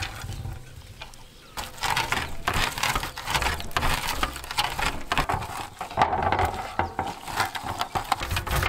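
Crisp roasted garlic cloves crackling and clattering against a wooden board: a dense run of small clicks and crunches starting about a second and a half in.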